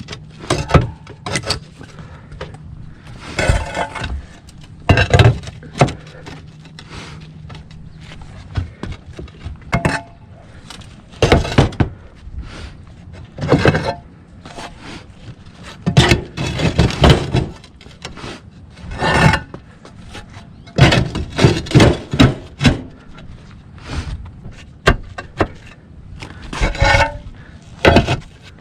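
Roof tiles being handled and set: irregular hard knocks and clinks of tile against tile, with a few longer scraping sounds.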